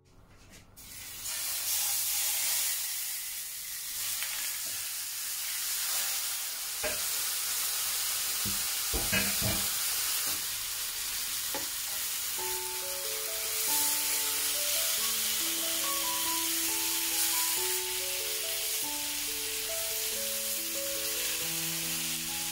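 Tandoori-marinated chicken sizzling steadily in hot oil in a grill pan, starting about a second in. A few knocks come between about 7 and 12 seconds, as pieces are laid in and moved.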